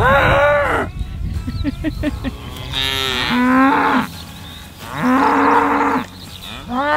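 A herd of cattle mooing loudly: about four long moos, one after another, with short pauses between.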